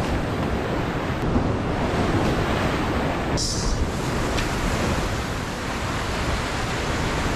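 Ocean surf washing and breaking against a rocky shoreline, a steady rushing noise, with wind on the microphone.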